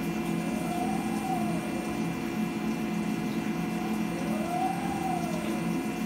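CNC vertical mill running a program with flood coolant spraying onto the workpiece: a steady machine hum and whine with several held tones over a hiss, and twice a whine that rises and then falls.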